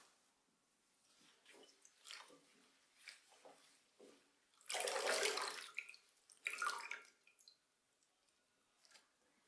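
Water splashing and trickling in short irregular bursts, the longest and loudest about five seconds in.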